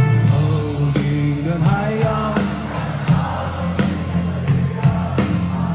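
Music: a track with a steady bass line and regular drum hits, and a sung melody that bends in pitch about a second or two in.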